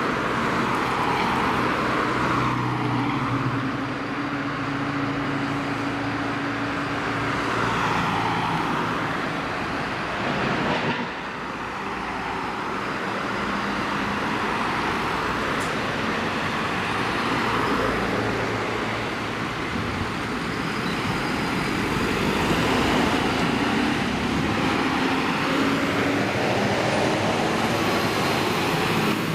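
Road traffic: motor vehicles passing one after another, each a slow swell of tyre and engine noise over a steady background rumble.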